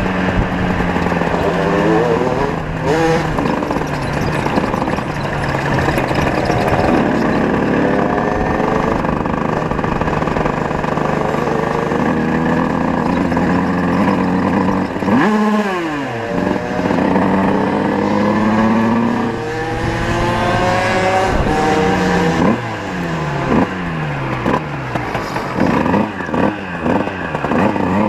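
Tuned 50cc two-stroke moped engines under way, revving up and down over and over as they rise and fall in pitch, with more than one engine heard at once at times.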